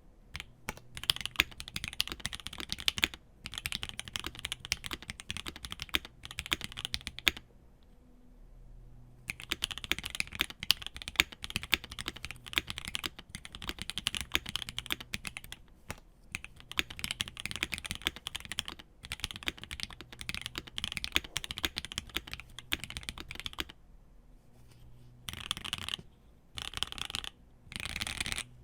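Fast typing on a mechanical keyboard with lubed Gateron Yellow Cap V2 linear switches on a brass plate and GMK keycaps, a quick poppy clacking. It comes in runs of keystrokes with short pauses and a longer break about eight seconds in.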